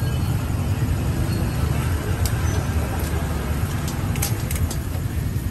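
Busy street ambience: a steady rumble of passing motor traffic, with a few short clicks about two seconds in and again about four seconds in.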